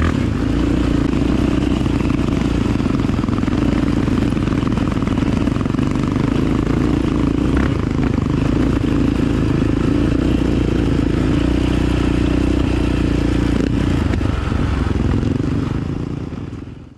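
Dirt bike engine running steadily at an even pace, without sharp revving, fading out near the end.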